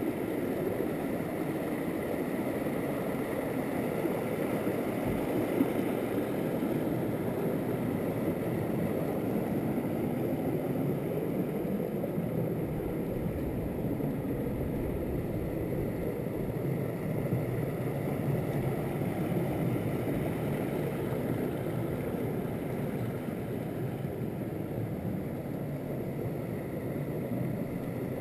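Small mountain stream rushing over rocks and little cascades: a steady rush of water. One brief knock about five and a half seconds in.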